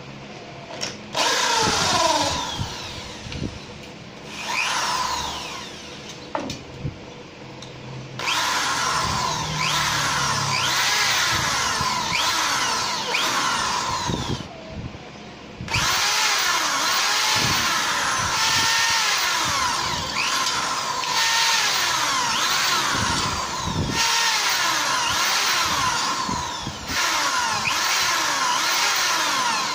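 Corded electric drill boring holes through a thin painted sheet-metal strap: two short bursts early on, then long runs of drilling from about eight seconds in, broken by brief pauses, the motor's whine gliding up and down as the trigger is eased.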